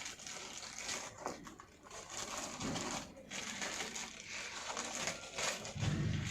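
CPU cooler packaging being handled, with irregular rustling and scraping noises as the cooler and its parts are taken out of the box.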